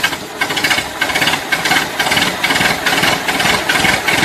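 Tractor engine running steadily, with a regular knock of about three beats a second.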